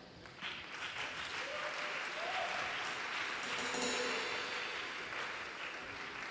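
Church congregation applauding during a pause in the sermon, the clapping swelling toward the middle and fading away near the end.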